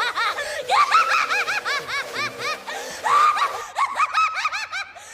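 A woman's high-pitched, gloating cackle from an anime soundtrack in quick repeated bursts, over background music, in two runs with a short break about three seconds in.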